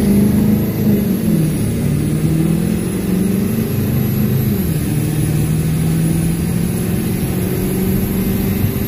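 Ford 7.3 Powerstroke V8 turbo diesel at full throttle in a four-wheel-drive boost launch, heard from inside the cab. The turbocharger with its KC S300 wheel gives a high-pitched whistle over the engine. The engine's pitch drops twice as the transmission upshifts.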